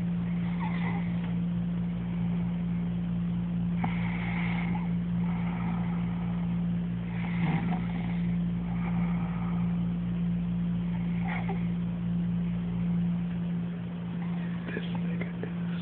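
A person snoring, with a rasping snore about every three and a half seconds. A loud, steady low hum runs underneath throughout.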